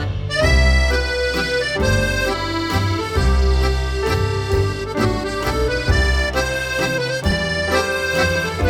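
Accordion music over a bass line, the bass notes changing about once a second.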